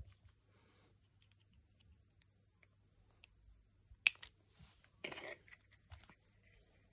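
Faint clicks and rustle of small plastic spray-pump parts (cap, valve and dip tube) being handled and fitted together, with one sharp plastic click about four seconds in and a short scuffing burst about a second later.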